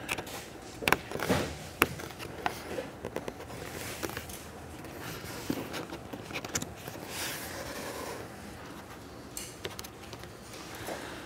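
A small pick tool prying and scraping at a car door's trim and rubber window seal, with scattered small clicks and taps as the pieces are pushed into line.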